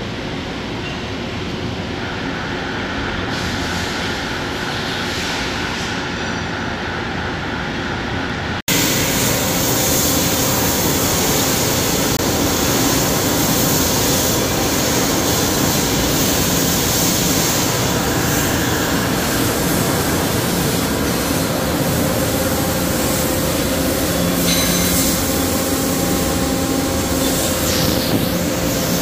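Steady factory-floor machinery din from a machining plant: a continuous hiss with faint steady hums. It cuts off abruptly about nine seconds in and comes straight back louder and fuller.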